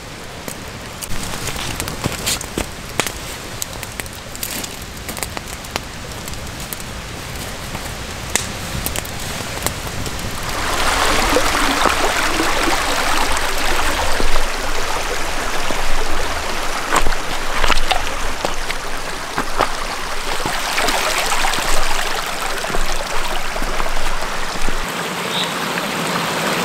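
Light rain patter with scattered ticks, then from about ten seconds in the louder, steady rush of a fast mountain creek running over stones, swollen by continuous rain.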